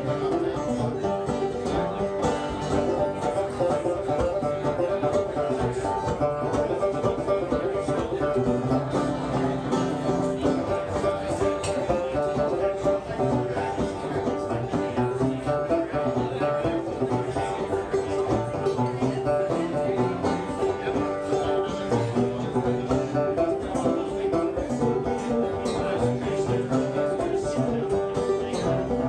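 A banjo and a cello banjo picked together in a live instrumental duet, a steady run of plucked notes with no singing.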